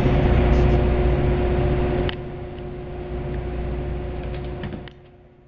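Steady hum and rumble of a ship's engines and machinery, with a low rumble and a steady mid-pitched tone. It drops noticeably in level after a click about two seconds in and fades out near the end.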